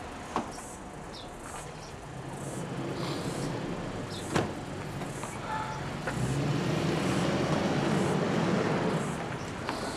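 A car door shuts sharply about four seconds in, then a V8 SUV's engine runs and the vehicle pulls away on a dirt lane, getting louder through the second half. Insects chirp faintly throughout.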